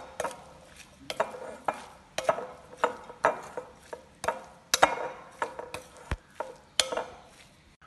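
A spoon stirring spiced mushroom pieces in a glass bowl, scraping and knocking against the glass in uneven strokes about twice a second.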